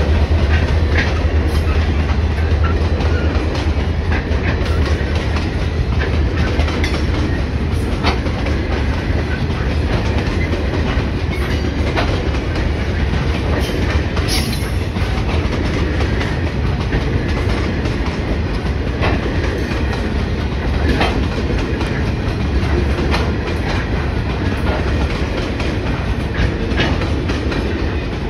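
Diesel-electric freight locomotives passing close by with a deep engine rumble that eases after the first few seconds, followed by a long string of grain hopper wagons rolling past, their wheels clicking over the rail joints every second or few.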